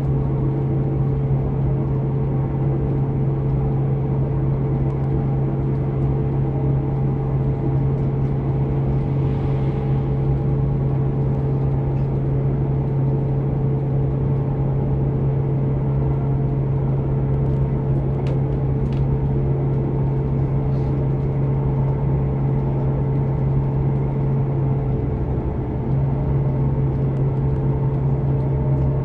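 Cabin noise of a British Rail Class 158 diesel multiple unit running at speed: a loud, steady low drone from the underfloor diesel engine over the rumble of the wheels on the rails. The drone dips briefly about 26 seconds in, then carries on.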